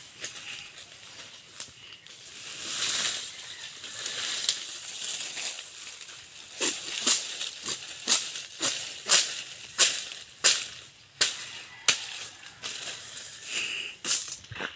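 Leaves and brush rustling, then from about a third of the way in a machete chopping at a thin green sapling, a steady series of sharp strikes about one and a half a second.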